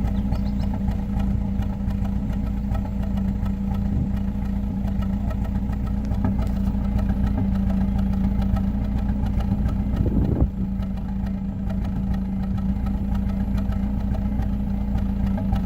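Acura Integra's four-cylinder engine idling cold with a misfire, running steadily with a brief uneven stumble about ten seconds in. The owner links the misfire to overheating on low coolant and suspects a failed gasket on the idle air control valve or electric idle control letting coolant into the intake.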